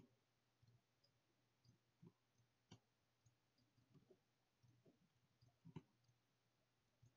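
Faint clicks of a Mad Catz M.M.O. 7 computer mouse, two of them sharper and about three seconds apart, over near silence with a faint low hum.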